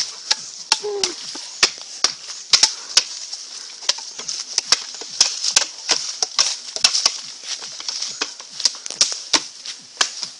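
Arms and hands striking the arms and post of a bamboo Wing Chun wooden dummy, making sharp, irregular wooden knocks, two or three a second, some in quick pairs, over a steady high hiss.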